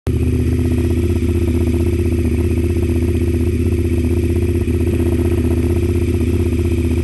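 Honda RC51's V-twin engine running steadily at an even speed, its firing pulses making a rapid, regular throb with no revving.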